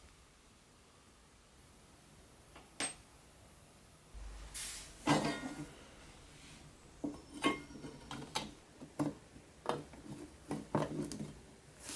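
Small metal toy-truck parts being handled and fitted: one light click, then from about five seconds in a dozen or so irregular clinks and taps of metal pieces knocking together.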